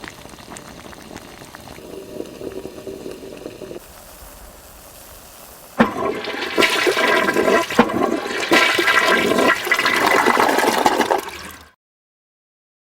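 A toilet flushing: a quieter watery stretch for about six seconds, then a sudden loud rush of water that cuts off abruptly near the end.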